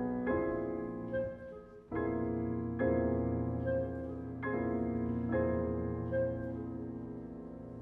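Two grand pianos playing slow chords, a new chord struck every one to two seconds and left to ring, with short higher notes sounding between some of them.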